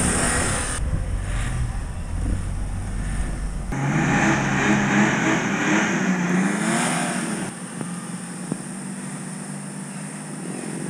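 Off-road 4x4 engines, a Nissan Patrol's among them, revving and labouring under load as they climb a muddy slope. The note rises and falls, and the sound changes abruptly a few times where clips are cut together. It is loudest in the middle.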